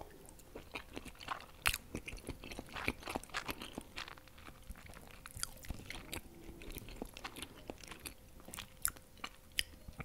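Close-miked chewing of crema volteada, a caramel custard flan, eaten off a metal fork, with many small irregular mouth clicks.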